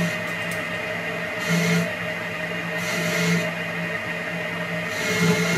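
Victor metal lathe running and turning a taper on a metal bar: a steady machine hum, with a short burst of hiss about every second and a half.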